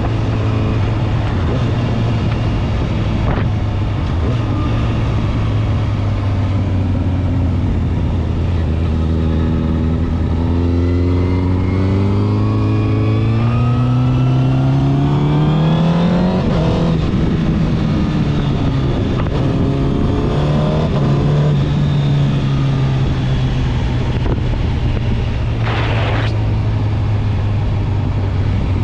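Honda CBR1000RR SP's inline-four engine with a LeoVince exhaust, ridden: it runs steady, then the revs climb over several seconds to a peak about halfway through and fall off sharply, before it runs on at steadier revs. A short rush of noise comes near the end.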